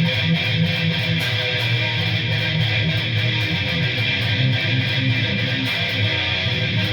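Ibanez Iron Label Iceman ICTB721 seven-string electric guitar with DiMarzio Deactivator pickups playing improvised metal rhythm riffs through a distorted amp tone, dense and continuous with heavy low end.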